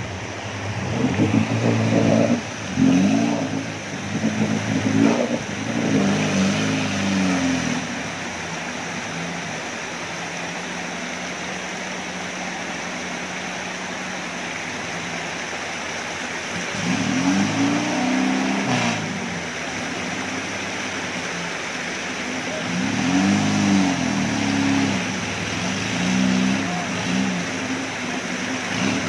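Off-road 4x4's engine revving up and falling back in repeated surges while the vehicle crosses a fast, muddy river, with a steadier stretch of engine running in the middle. The steady rush of the river's rapids runs underneath.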